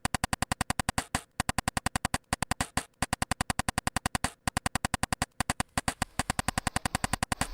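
Skateboard recording chopped and looped into a rapid, evenly spaced stutter of about eight pulses a second, each pulse holding the same pitched ring. It forms a machine-like rhythm with a few short breaks.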